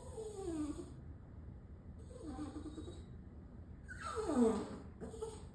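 A dog whining to be let out: three high, falling whines, the last and loudest about four seconds in.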